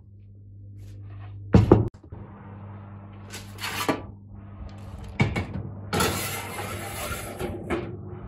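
A metal baking tray being handled and slid into an oven. A loud knock comes near two seconds in, then smaller clatters and a longer scraping rush of metal on the oven rack about six seconds in, over a steady low hum.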